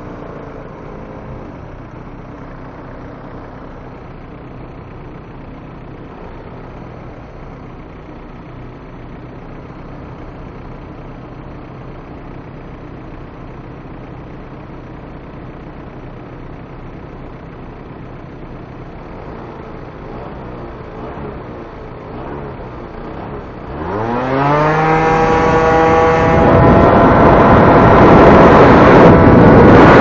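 Motor scooter engine idling steadily while stopped, then revving up and pulling away about 24 seconds in. As it gathers speed, loud wind noise buffets the action camera's microphone and drowns out most of the engine.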